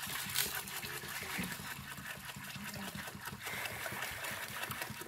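Water poured in a steady stream from a plastic jerrycan into a metal cooking pot, splashing onto a few dry pigeon peas at the bottom as the pot fills.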